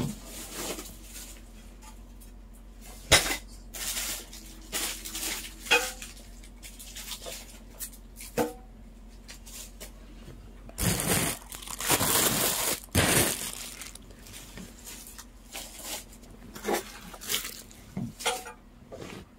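Ceiling fan parts and their plastic-bag and paper packaging being handled and set down: scattered knocks and clatters with short rustles, and a longer spell of crinkling plastic about eleven seconds in.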